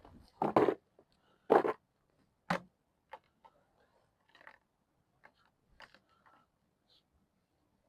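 Irregular clicks and knocks of gear being handled: a few louder knocks in the first three seconds, then scattered faint ticks.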